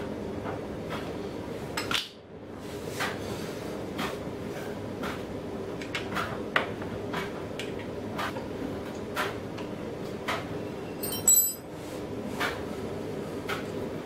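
Light metallic clicks of a hand tool working the 6mm Allen bolts on a motorcycle's belly pan, coming about one or two a second. About eleven seconds in there is a brighter metallic clink with a short ringing tone. A steady low hum runs underneath.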